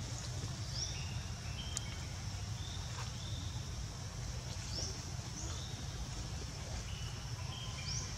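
Forest ambience: a steady high insect drone with several short, rising bird chirps and a few brief whistled notes, over a steady low rumble.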